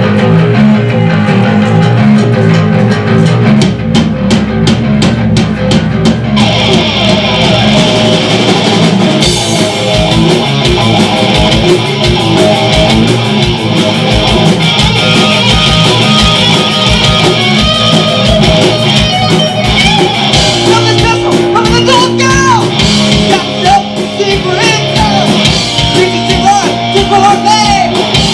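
Live rock band playing loudly: electric guitar and bass over a drum kit, the sound filling out about six seconds in.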